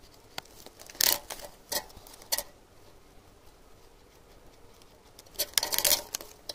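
A small knife blade slicing and scraping the plastic insulation off an aluminium wire against a wooden log: a few short scraping strokes from about a second in, then a longer cluster of strokes near the end.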